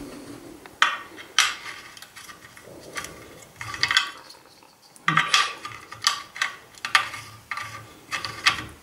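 Metal clinks and scrapes from the steel extension-arm fittings of an Evolution 800B mitre saw stand as the stop shelf is seated and its locking knob is screwed in. There are two sharp clinks about a second in, a few lighter ones, and then a quick run of clinks from about five seconds in.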